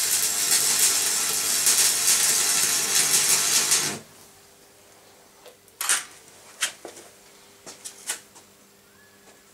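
Electric arc welding: the arc crackles and hisses steadily for about four seconds, then cuts off. A few faint clicks and taps follow over a low steady hum.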